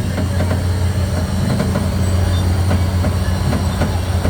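Amusement-ride machinery running: a steady low hum with light rattling and clicking over it.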